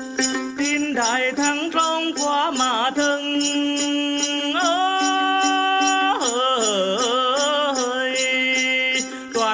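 Instrumental interlude of Tày then music: a held, sliding melody line with wavering pitch over a steady drone, and a jingling bell rattle shaken at about four strokes a second.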